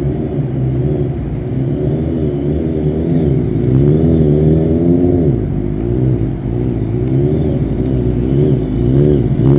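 Stunt motorcycle engine revving up and down over and over as the rider works the throttle to hold a long wheelie.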